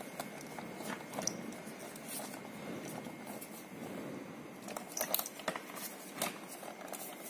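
Small plastic clicks and rustling as fingers work the plastic wire connectors of a kids' electric ride-on's battery wiring loose, with a cluster of clicks about five seconds in.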